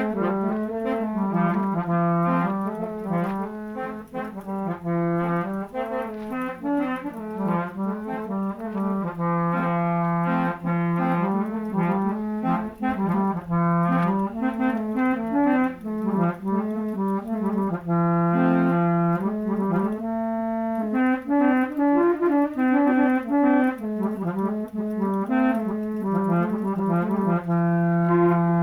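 A tune played on a set of musical vehicle horns: a quick melody of short, changing notes, ending on a long held note near the end.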